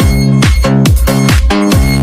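Electronic dance music with a steady kick-drum beat, about two beats a second, under synth chords.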